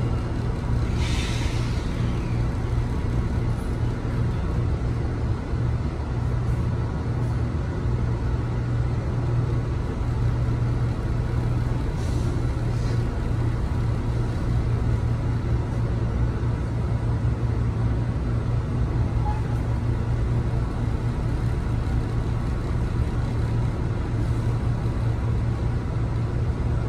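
Inside an M3A electric railcar: a steady low hum from the car's equipment, with a short hiss of air about a second in and a fainter one around twelve seconds.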